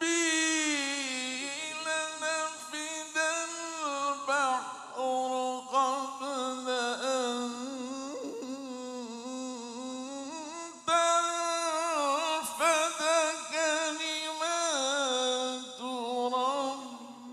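A man's voice reciting the Qur'an in the melodic, drawn-out qira'ah style into a microphone, with long held notes ornamented by quick wavering turns. It runs as two long phrases, with a short breath about eleven seconds in.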